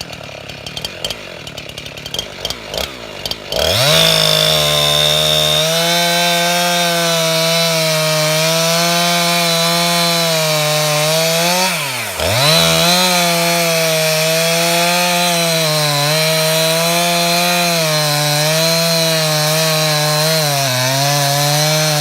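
Two-stroke Husqvarna chainsaw ticking over quietly, then throttled up at about three and a half seconds to a steady high-revving run while cutting firewood. The revs dip sharply and recover once, about twelve seconds in.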